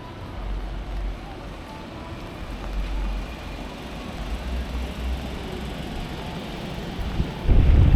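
Rainy city ambience: a steady hiss over a low, uneven rumble. Near the end, wind gusts buffet the microphone.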